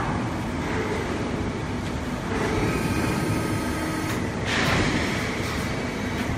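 Hydraulic press brake running: a steady hum from its electric motor and hydraulic pump, with a higher whine between about two and a half and four seconds in and a brief louder surge of hiss at about four and a half seconds.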